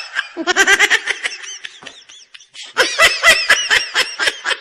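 Laughter in rapid, repeated bursts: two fits of ha-ha-ha pulses with a short pause between them.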